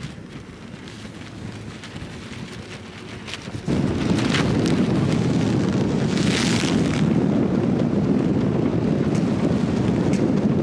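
Wind buffeting the microphone: quieter at first, then a sudden loud low rumble from about four seconds in, with short hissing gusts.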